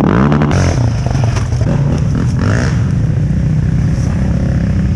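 Quad bike (ATV) engine running loud and steady, coming in suddenly.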